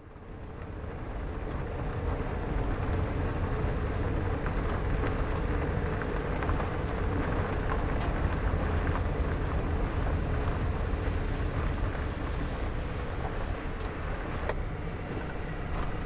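Small car driving, heard from inside the cabin: a steady engine and road rumble that fades in over the first couple of seconds, with a light click near the end.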